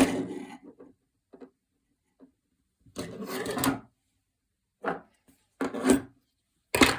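Pocket knives being handled and set down on a hard surface: a run of short clicks, knocks and rubbing scrapes in about six separate bursts, with quiet gaps between them.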